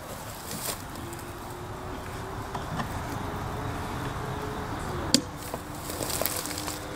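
A single sharp click about five seconds in as a hand works the homemade RTC ghost box, over faint steady hiss and a low steady hum.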